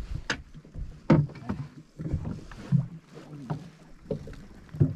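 Small waves slapping against the hull of an inflatable boat at sea: a series of irregular thumps and splashes, about five of them stronger than the rest.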